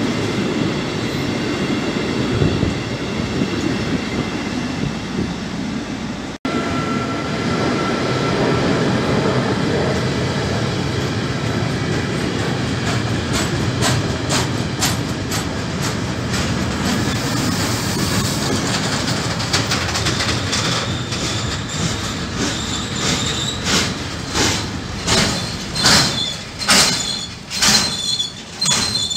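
Freight train wagons rolling past on the adjacent track: a steady rumble of wheels on rail, broken briefly about six seconds in. In the last ten seconds the wheels clack sharply over rail joints about twice a second, with a high wheel squeal.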